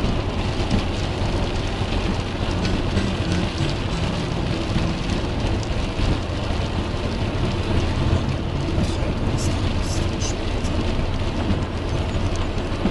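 Steady noise inside a car driving at motorway speed in rain: tyres on the wet road and rain on the windscreen, over a low engine hum, with a few faint ticks of raindrops in the second half.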